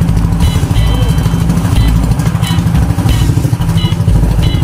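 Motorized bangka's engine running steadily under way, a loud low drone.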